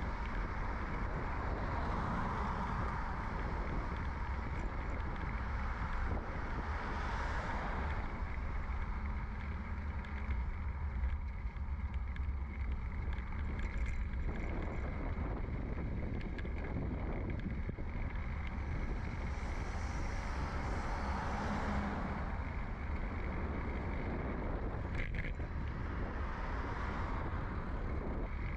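Bicycle riding noise picked up by a bike-mounted microphone in a furry windshield: a steady low rumble of wind and tyres on the road. Traffic swells and fades a few times, most clearly about two seconds in, around seven seconds, and again near twenty seconds.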